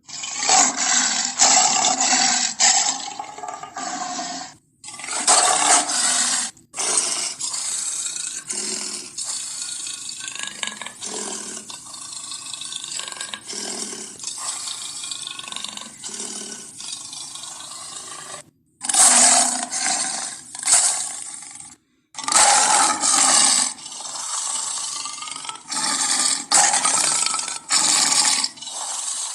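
A series of sabre-toothed cat (Smilodon) sound effects: harsh big-cat roars and growls, cut together with several short breaks between them.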